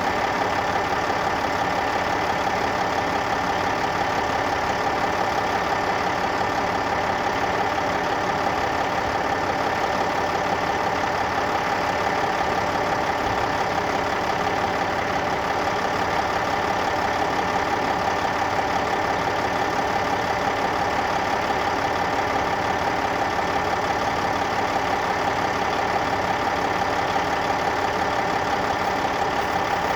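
Heavy earthmoving diesel engine running steadily at an even pitch, with no revving or load changes.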